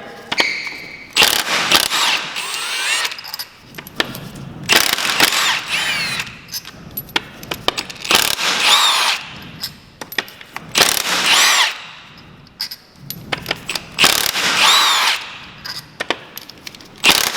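Power tool, most like an impact wrench, undoing the tight flywheel bolts in repeated bursts of about a second each, its motor whine rising and falling with every pull of the trigger.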